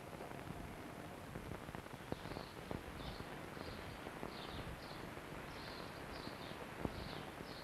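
Quiet outdoor countryside ambience: a steady hiss with short, high chirps repeating about twice a second, and a few faint clicks.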